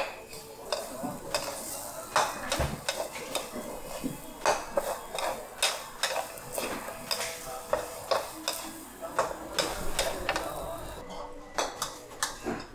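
Metal spatula clanking and scraping against a wok in irregular strikes, about one or two a second, as food is stir-fried over a low sizzle.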